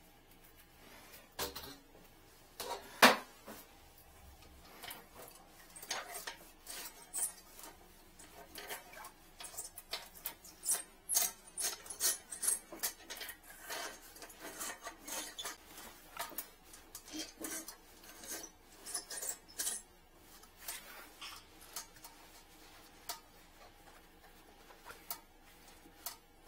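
Handling clatter from toilet-clog fishing tools: irregular light clicks, clinks and scrapes of a metal wire hook and camera cable being worked. One sharper knock comes about three seconds in, and the clicking is busiest in the middle stretch.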